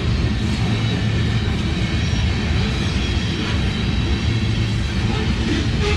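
Freight train rolling past: a steady rumble of cars and wheels on the rails.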